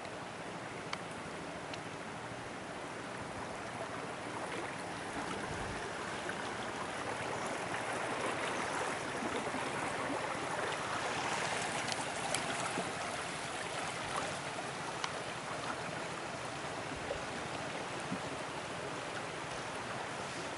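Rushing, swirling water of a fast-flowing flooded river, a steady wash that grows louder through the middle and eases toward the end, with a few faint clicks.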